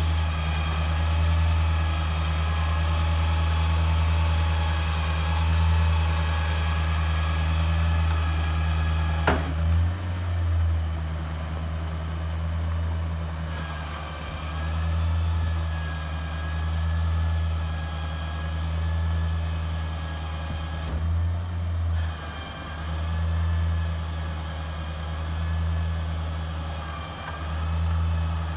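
2007 GMC C4500's 8.1-litre Vortec V8 gasoline engine running steadily with the remote throttle engaged, driving the bucket boom as it moves. A sharp click comes about nine seconds in, and the engine note dips and rises several times.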